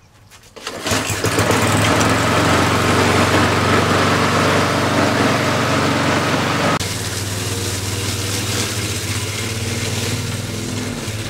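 Old rotary push lawn mower's small gasoline engine starting up about a second in and then running steadily. Its carburetor has freshly been drained of water. The sound drops suddenly in level about seven seconds in, with the engine still running.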